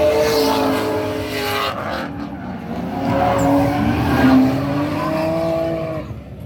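Drift cars sliding with their tires squealing over engine noise. The squeal wavers up and down in pitch and fades near the end.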